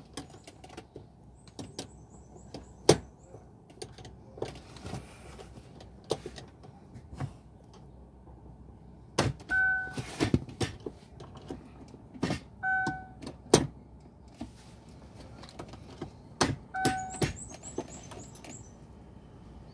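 Irregular metal clicks and knocks as a screwdriver is worked inside a Chevrolet's jammed automatic gear-selector mechanism, whose shift lever is broken. Three short beeps sound, about three seconds apart, in the middle of the clip.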